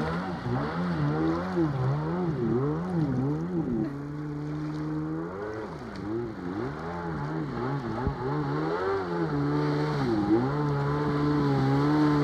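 Jet ski engine running, its pitch rising and falling quickly over and over, with a couple of stretches where it holds steady.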